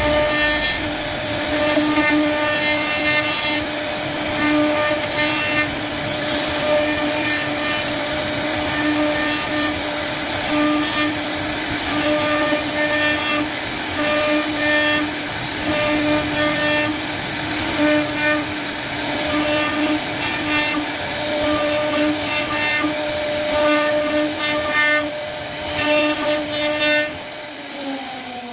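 CNC router spindle running as its bit carves a relief pattern into wood: a steady whine over cutting noise, growing louder and softer from moment to moment. Just at the end the spindle winds down, its whine falling in pitch as it fades.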